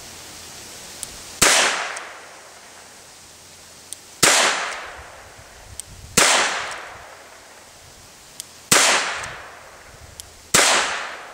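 Five shots from an Iver Johnson Safety Automatic five-shot top-break revolver in .38 S&W, fired one at a time about two seconds apart, each followed by a fading echo. A faint click comes a fraction of a second before each shot.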